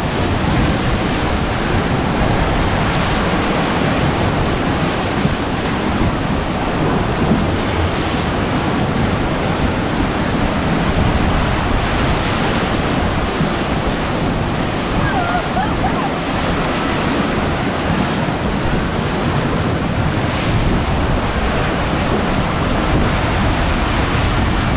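Steady rushing and churning of water as the barrel gondolas of a Zierer Jet Skis ride are towed in a circle through the water basin, kicking up spray and waves, with wind buffeting the microphone.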